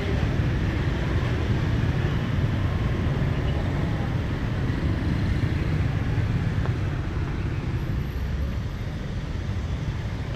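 Steady street traffic noise: a continuous low rumble of passing vehicles with an even hiss over it.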